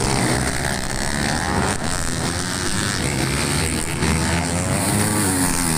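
Several motocross dirt bikes racing at once, their engines revving up and down in overlapping pitches as the riders accelerate through a corner.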